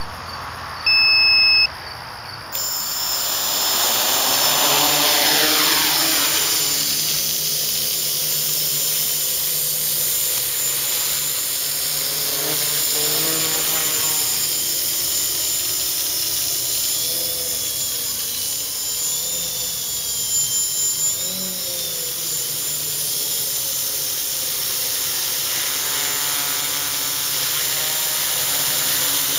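X525 quadcopter's four motors and propellers spinning up for takeoff, then a steady buzzing whine whose pitch rises and falls as the throttle changes in flight. A short, loud electronic beep sounds about a second in, before the motors start.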